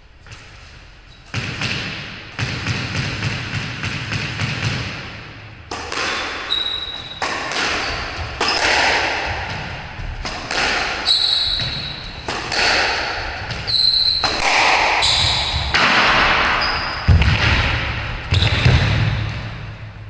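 Squash rally: the ball cracks off racquets and thuds against the court walls about once or twice a second, each hit echoing around the enclosed court. Short high squeaks of court shoes on the wooden floor come between the hits.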